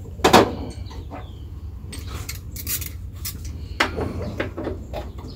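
Metal hand tools clinking and clattering as a ratchet wrench with an extension is fitted onto a motorcycle highway-peg clamp bolt, with a loud clank near the start and scattered clicks and knocks after it.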